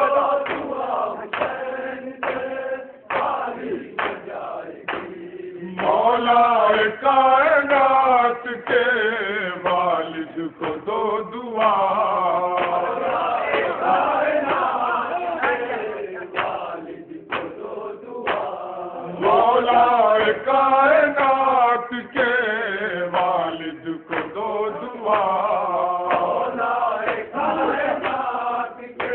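Men chanting a noha, a Shia mourning lament, in long melodic phrases with short breaks between them.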